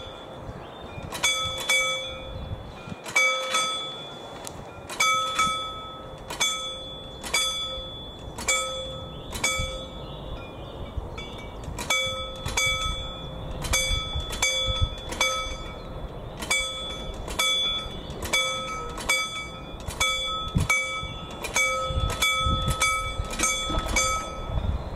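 Warning bell of a mechanical railway crossing barrier ringing in quick, slightly irregular strikes, about two a second, each strike ringing on, as the crossing closes and the barriers are lowered.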